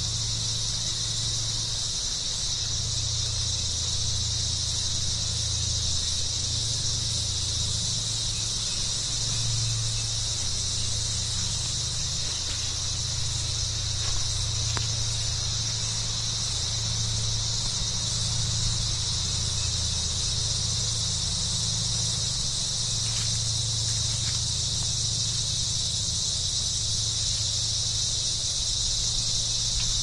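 Steady, continuous high-pitched chorus of insects in the rainforest, with a low rumble underneath.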